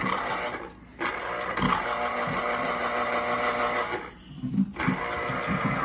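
Electric citrus juicer's motor whirring steadily as an orange half is pressed down on its spinning reamer. The motor stops briefly twice, about a second in and about four seconds in, as the reamer switches direction, with a few low knocks during the second stop.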